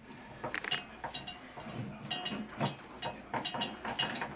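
Irregular small metallic clicks and scrapes of a screwdriver working the handle screw into a shower valve's metal lever handle as the handle is refitted.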